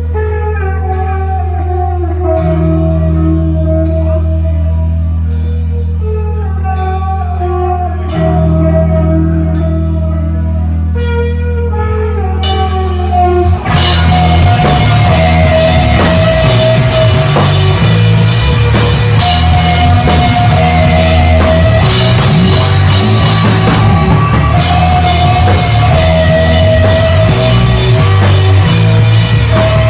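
Live rock band: picked electric guitar notes ring over a sustained bass note, with a sharp cymbal-like hit about once a second. About halfway through the whole band crashes in loud, with drums and distorted guitars playing a heavy riff.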